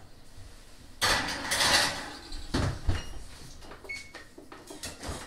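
A baking pan going into an oven and the oven door shutting: a rush of noise and a few knocks, followed by a couple of short electronic beeps as a two-minute timer is set.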